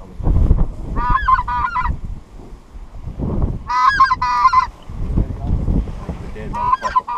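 Goose-type honking calls in three short runs of four or five notes each, about a second in, four seconds in and near the end. Gusty wind rumbles on the microphone throughout.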